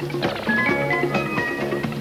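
Upbeat soundtrack music: a repeating bass line under a steady drum beat, with a short run of high held melody notes starting about half a second in.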